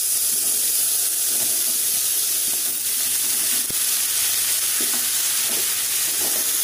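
Onions, green chillies, ginger and garlic sizzling steadily in oil in an aluminium kadai while tomato wedges are tipped in and stirred. A single sharp click of the utensil against the pan comes a little before four seconds in.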